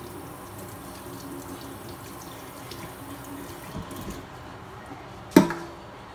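Kitchen tap running water into a sink, with one sharp clank about five seconds in, a hard object knocking against something and ringing briefly.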